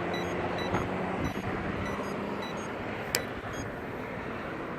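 Street traffic noise, with a vehicle's engine hum fading out about halfway. Faint short electronic beeps from the crosswalk's pedestrian signal repeat through it, and there is one sharp click about three seconds in.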